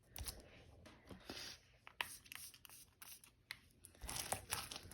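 Sticky textured slime being stretched and kneaded by hand, giving irregular small pops, clicks and crackles, more of them near the end.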